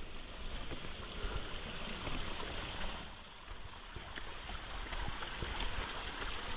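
Water of a small hillside stream running steadily.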